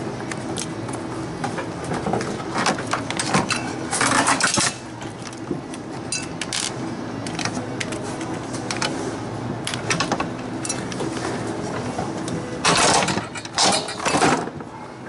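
Metal clinks, knocks and scraping as a half-horsepower refrigeration compressor is handled, worked loose and lifted out of a beer bottle cooler. There are louder scraping bursts about four seconds in and again near the end, over a steady background hum.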